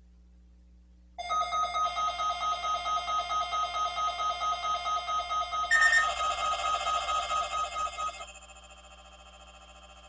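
A weather radio receiver's alert alarm beeping rapidly, about four or five beeps a second, for about seven seconds. The tone shifts a little past the halfway mark, then the alarm stops and a much fainter steady tone carries on.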